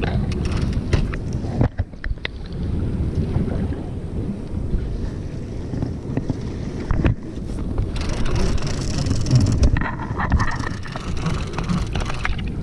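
Wind buffeting the microphone over the low rumble of water against a small boat's hull, with scattered light knocks, and a louder hissing rush for about two seconds near two-thirds of the way through.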